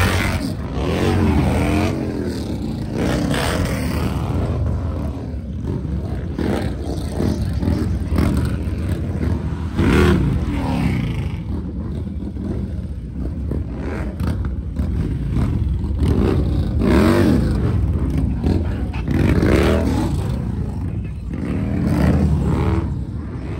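Harley-Davidson motorcycle V-twin engines running and revving as a group rides, the sound swelling up and down every few seconds over a steady low rumble.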